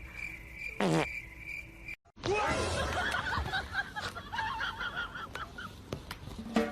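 A short falling squeal about a second in, then after a brief cut, people's voices with snickering laughter.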